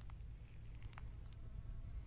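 Honeybee buzzing faintly, a thin steady hum that sets in about halfway through, over a constant low rumble, with a few short ticks.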